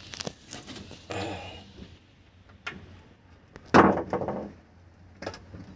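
Clicks and knocks of hands working at a Suzuki F6A engine with the engine off, taking off the distributor cap to check it for moisture, with one louder clunk about two-thirds of the way in.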